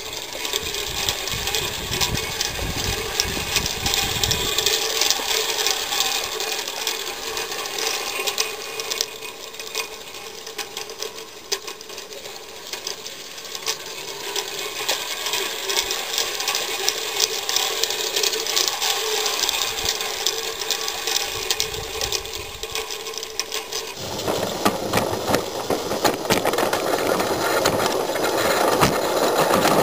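Gas-fired live-steam Mamod 0-4-2 tender locomotive in 16 mm scale running on its track, a fast, steady rattling beat of steam exhaust and wheels on rail. About three-quarters of the way through the sound grows louder and fuller.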